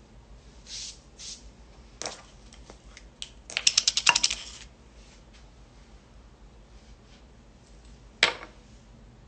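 A small cosmetic jar being handled: a rapid run of light hard clinks and rattles lasting about a second near the middle. There are single sharp clicks about two seconds in and again near the end, with faint rustling.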